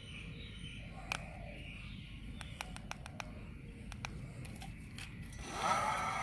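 A run of light, quick clicks as the S830 display's buttons are pressed to step the pedal-assist level down. Near the end the brushless hub motor spins up with a rising whine that settles into a steady electric hum.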